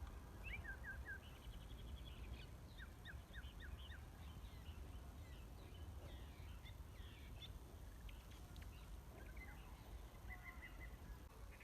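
Small birds singing: quick series of high chirps and short trills, scattered and overlapping, over a faint low rumble.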